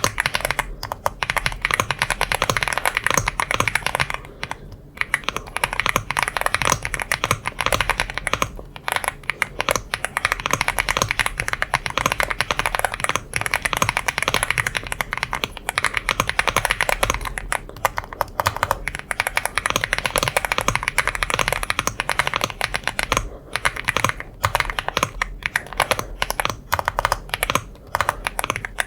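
Womier S-K71 mechanical keyboard being typed on continuously: a fast, dense run of key clacks, with a few short pauses between bursts.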